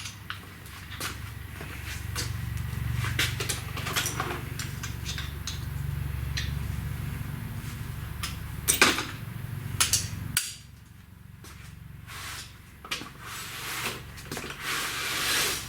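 Metal hand tools clinking and knocking, as when a ratchet and sockets are picked out and handled, with one sharp clank about nine seconds in. Under them a steady low hum runs and then cuts off suddenly about ten seconds in.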